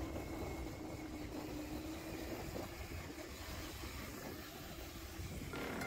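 Steady low rumble of wind and tyre noise on the move, with a faint steady hum in the first second or so. Music starts up near the end.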